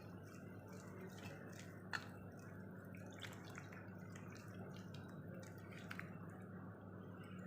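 Thin gram-flour batter being stirred, faintly, with a few light clicks over a low steady hum.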